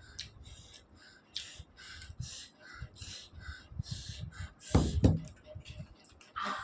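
Close-up mukbang eating sounds: wet chewing and lip-smacking about twice a second, deliberately made for the microphone. A short, loud vocal sound breaks in about five seconds in.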